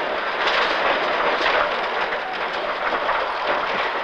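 Rally car at speed, heard from inside the cockpit: steady, loud engine and road noise with frequent small knocks and rattles.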